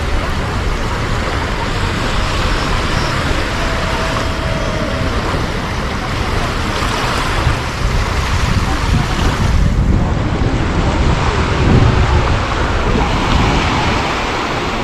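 Surf washing onto the beach, with wind buffeting the microphone in a steady, rumbling roar.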